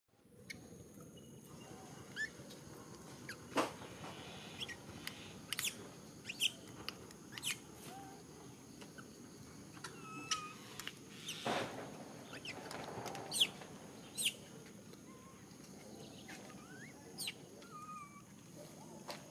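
Small birds chirping: many short, sharp high chirps and a few short falling whistles scattered irregularly, over a faint steady high-pitched whine.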